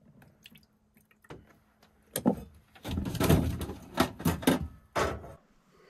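Small clicks as the cap comes off a plastic gallon water jug. Then, about three seconds in, water glugs out of the jug into a small metal saucepan for about two and a half seconds.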